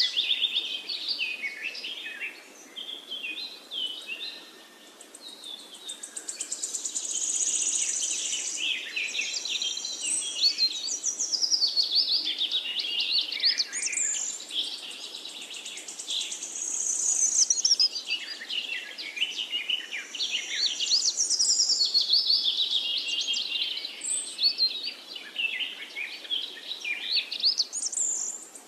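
Songbirds singing almost without pause: rapid, varied high-pitched chirps and trills, thinning briefly about four seconds in, over a faint low background hum.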